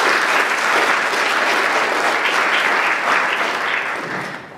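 Audience applauding with steady, dense clapping that dies away near the end.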